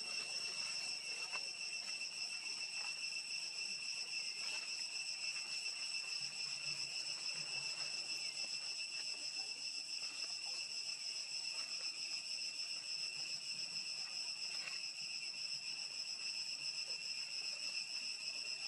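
Steady high-pitched insect drone from the surrounding forest, one unchanging whine with fainter higher tones above it, with a few faint ticks and rustles.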